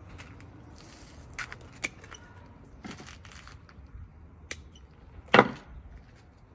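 Scattered handling noises from potting work: light clicks and brief rustles, with one louder knock about five seconds in.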